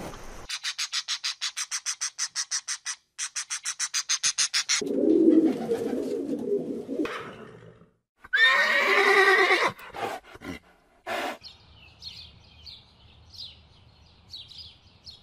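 A rapid pulsing chatter, about eight pulses a second, then a lower rough call; about eight seconds in, a horse whinnies, a neigh that falls in pitch over about a second and a half. A few clicks and faint bird chirps follow.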